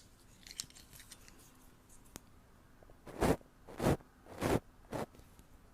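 A brush swept across a microphone in four short strokes, each roughly half a second apart, starting about three seconds in, after a quieter stretch of faint scratching.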